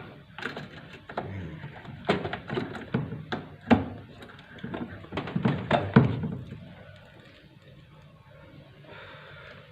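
Irregular knocks, clicks and clatter of hard objects being handled, dense over the first six seconds or so, then a much quieter stretch.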